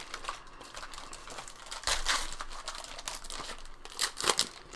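Plastic wrapper of a trading-card hanger pack crinkling as it is handled and torn open, with two louder bursts of rustling about two seconds in and near the end.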